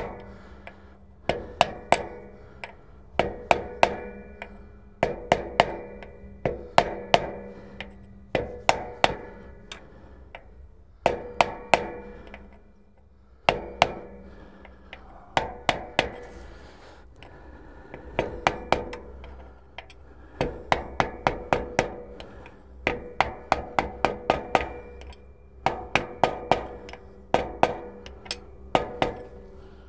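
Hammer striking a steel drift on the outer race of the drive shaft bearing, driving it into the bore of a tractor dual clutch pressure plate. Quick runs of sharp metal taps, each with a short ring, come in clusters of several strikes about every two seconds.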